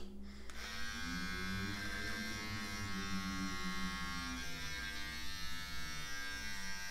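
Philips electric beard trimmer switching on about half a second in and running with a steady hum while it cuts beard hair along the cheek and neck.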